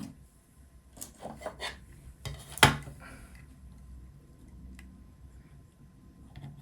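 Hard robot chassis parts handled on a desk: a few light clicks and taps, then one sharp knock a little over two and a half seconds in.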